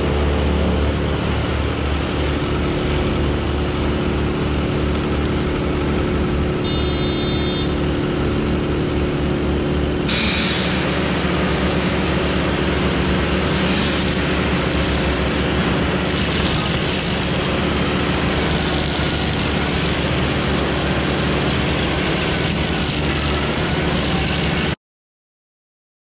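Tracked stump grinder's engine running steadily at high speed; from about ten seconds in a harsher, gritty noise joins as the cutter wheel grinds into a tree stump. The sound cuts off suddenly near the end.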